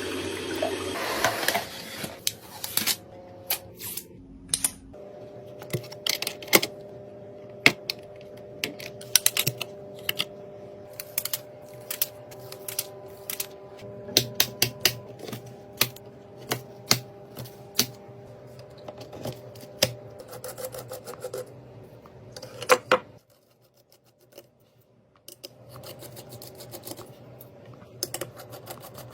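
Irregular clicks, taps and light plastic rattles of computer hardware being handled during assembly of a desktop PC, with a faint steady hum through the middle that drops away for a couple of seconds near the end.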